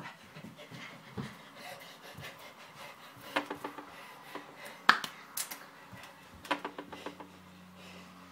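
Scattered light clicks and taps in a small room, coming in quick clusters about three and a half and seven seconds in, with one sharper tap near five seconds.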